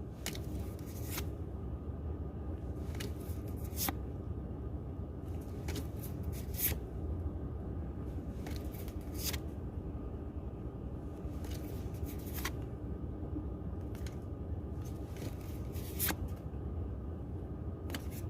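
Pokémon trading cards being flipped and slid one at a time from a booster pack, giving short, irregular card snaps every second or two over a steady low hum.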